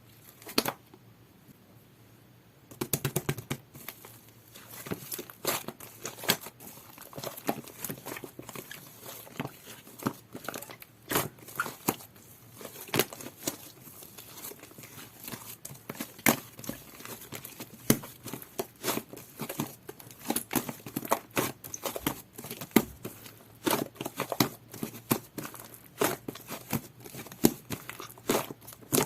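Jelly-textured slime being squished, pressed and stretched by hand, making a dense, irregular stream of sharp clicking, crackling pops. It is nearly quiet apart from one click until about three seconds in.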